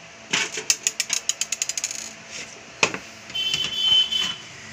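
Sheet-metal top cover of a Dahua DVR being worked loose and slid off. First a quick run of light metallic clicks that speeds up, then one sharp click, then a metal-on-metal scrape of about a second with a high ringing squeal.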